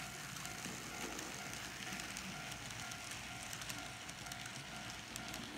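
N scale Bachmann 0-6-0 model steam locomotive running on track while pulling a string of metal-wheeled freight cars. It makes a quiet, steady motor whine over a fine rapid clicking and rattling of the wheels on the rails.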